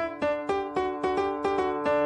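Background music: a piano-like keyboard melody of short, evenly spaced notes, about four a second.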